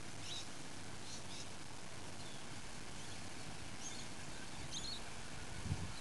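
Small birds chirping in short, high calls every second or so over a steady hiss, with a single low thump near the end.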